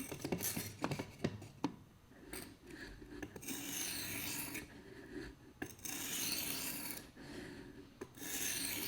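A coarse whetstone grinding against a knife blade while its edge is reprofiled: a few light clicks and knocks, then three long rasping strokes of about a second each.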